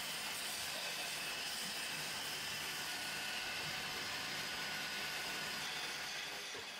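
Motor-driven wood lathe running, with a hand-held turning tool shaving the spinning wood: a steady whirring hiss that eases slightly near the end.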